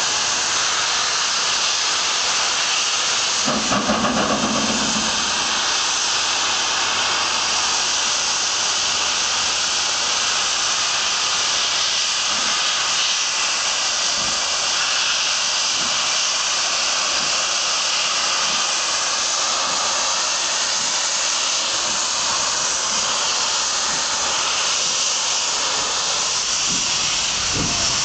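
Steam locomotive LMS Princess Royal class 6201 Princess Elizabeth hissing steam loudly and steadily as it starts away, with white steam pouring from its front end. There is a short low tone about four seconds in. In the second half, faint low beats from its exhaust come through the hiss as it begins to move.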